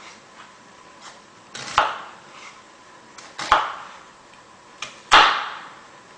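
Knife slicing an onion into thin strips, the blade knocking down on the cutting board: three clear knocks about a second and a half apart, with fainter taps between them.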